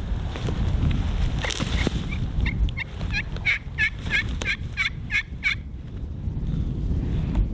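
A run of about ten turkey yelps, roughly three a second, each note high and falling in pitch, over a low wind rumble and the rustle of dry leaves.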